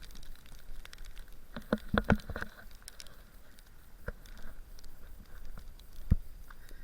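Footsteps crunching in packed snow, uneven and irregular, with a cluster of steps about two seconds in and single steps later, over a low steady rumble.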